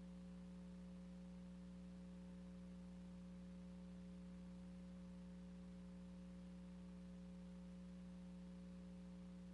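Near silence: only a faint, steady hum with light hiss, unchanging throughout.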